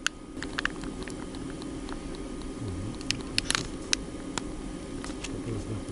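Clear plastic zip-lock packet crinkling and crackling as it is handled and opened, a run of short, sharp irregular clicks, over a steady low hum.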